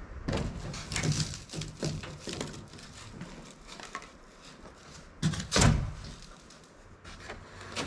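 Irregular scraping and knocking from hand work on the gravel and rigid-foam footing base, with one louder thump about five and a half seconds in.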